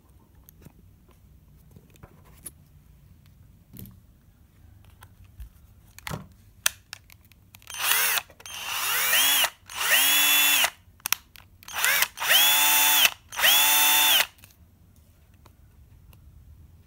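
INGCO cordless impact driver run with no load, powered through temporary wires from a 12 V INGCO battery pack. It is squeezed in about six short trigger bursts starting about eight seconds in; each time the motor winds up with a rising whine, runs steady, then stops. Before that there are only a few light handling clicks.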